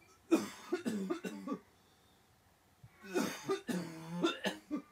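A man coughing in two fits of several harsh, hacking coughs, a second or so of quiet between them.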